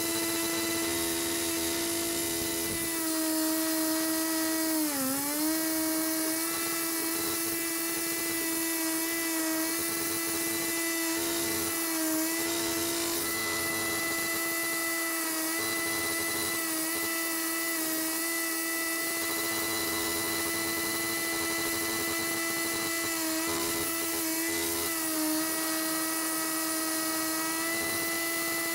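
Disc cutter (cut-off saw) cutting a concrete slab, running at high speed with a steady whine. Its pitch dips briefly as the blade bites and loads the motor, most deeply about five seconds in and again several times later.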